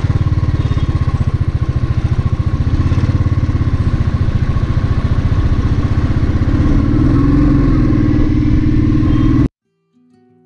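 Motorcycle engine running as the bike rolls slowly, its low firing pulses steady with a brief rise and fall in pitch, then cutting off abruptly near the end.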